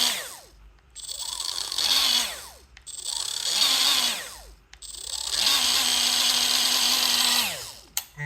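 First-generation Milwaukee M12 right angle die grinder (2485-20) repeatedly spinning up with a high whine and coasting back down, three short runs after a wind-down, with clicks in between. The grinder is showing a fault that came back after a factory repair.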